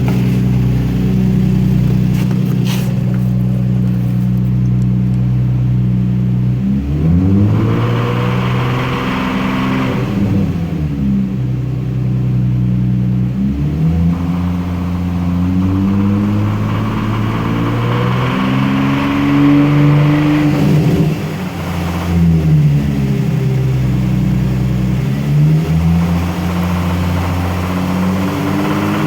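Infiniti G35's 3.5-litre VQ35 V6 engine idling steadily, then revved up and down several times from about seven seconds in. The engine has a ticking/knocking noise whose cause the owner does not know.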